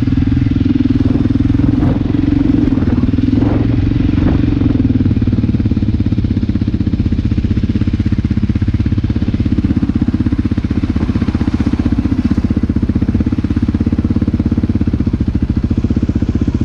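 Quad (ATV) engine running steadily with an even, fast firing beat.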